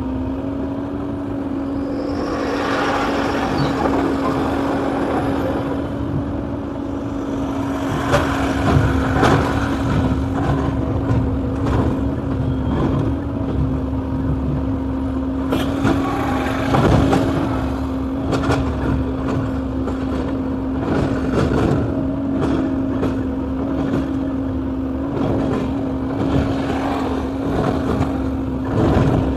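Excavator's diesel engine running at a steady pitch, with irregular knocks and rushes of noise over it.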